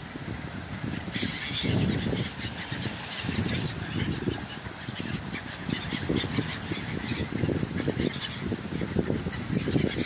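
Many gulls calling in short, harsh cries over waves washing and surging among the rocks of a sea shore.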